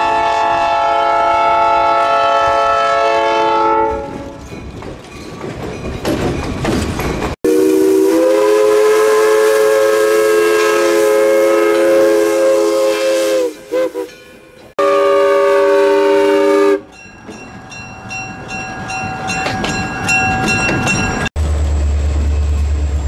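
A cut-together run of train sounds. First a diesel locomotive's air horn sounds a several-note chord for about four seconds, followed by the rumble of the passing train. Next a steam locomotive's whistle blows a long blast that sags in pitch as it ends and then a shorter second blast, and near the end a diesel locomotive passes close with a deep engine throb.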